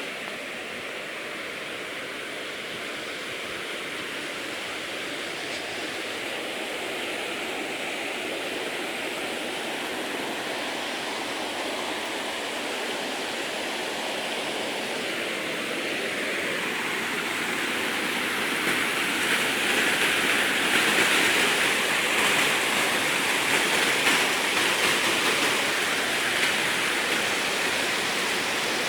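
San Antonio river water flowing, a steady rush that grows louder past the middle and stays louder to the end.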